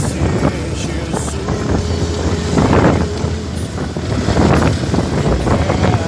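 Wind buffeting the microphone over the steady low rumble of a moving vehicle, with louder gusts about two and a half seconds in and again near four and a half seconds.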